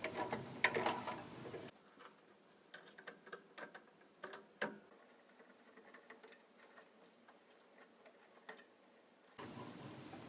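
Faint scattered clicks and light metallic taps of crimped spade terminals and jumper wires being slid under a power supply's terminal screws. The handling is busiest in the first two seconds, with a short cluster of clicks around three to five seconds in.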